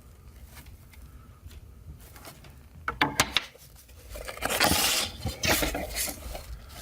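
Unboxing handling noise: a few sharp clicks about three seconds in, then crinkly rustling of packaging for about two seconds as items are taken out of the box.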